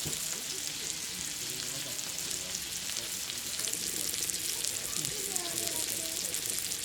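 Food sizzling steadily in a hot pan, a continuous hiss with many fine crackles.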